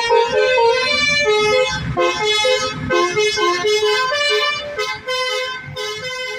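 Basuri musical bus horn playing a melody of held notes that step from pitch to pitch, fading near the end.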